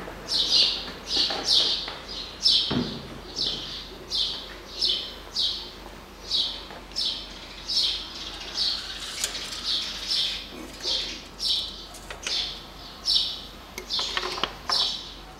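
A small bird chirping over and over, about two short falling chirps a second. A single dull knock sounds about three seconds in.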